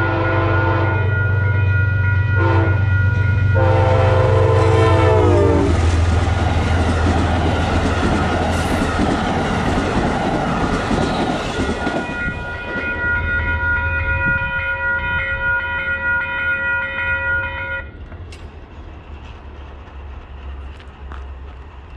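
Metro-North passenger train's multi-tone air horn sounding several blasts as it comes up, its pitch dropping as it passes. Then comes the rushing and clickety-clack of the train going by. A further long horn blast follows as it moves away and cuts off about three-quarters of the way in.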